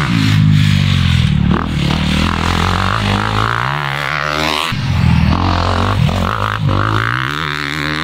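Dirt bike engine running at low revs, a deep pitched note that wavers up and down with the throttle as the bike goes through a corner.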